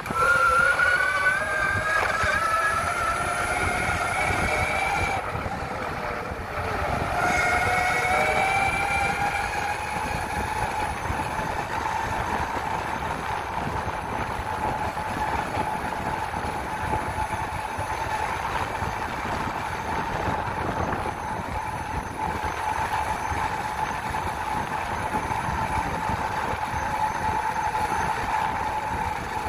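Electric mountainboard motors whining as the board accelerates. The pitch rises over the first five seconds, breaks briefly about six seconds in, climbs again, then holds steady while cruising, over a steady rush of noise.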